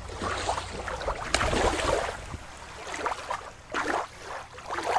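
Small waves lapping and sloshing at the water's edge, in irregular washes.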